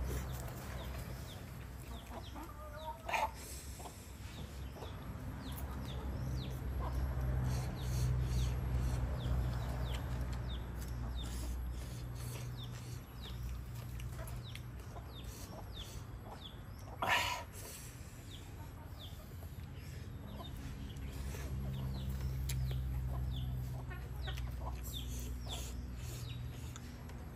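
Chickens clucking in the background over a steady low hum, with faint small bird chirps; one louder call stands out about 17 seconds in and a shorter one about 3 seconds in.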